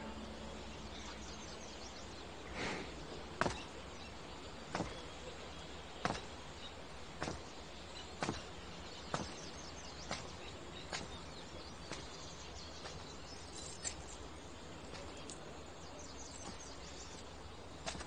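Slow, evenly paced footsteps on stone paving, about one a second and growing softer in the later steps, over a faint steady outdoor background.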